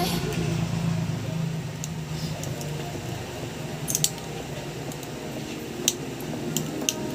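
Thin metal pick clicking and scraping on the plastic edge of a motorcycle's digital instrument panel as it pries the old polarizer film off the LCD: a few sharp ticks, the loudest about four and six seconds in, over a steady low hum.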